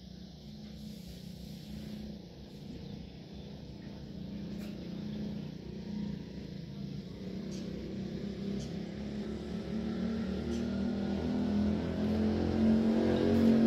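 A motor vehicle's engine running and growing steadily louder, as if drawing nearer, with a faint slowly rising whine in the last few seconds.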